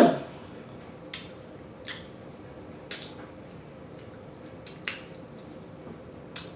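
A short, loud burp right at the start, then quiet chewing of pizza with a few scattered wet mouth smacks and clicks.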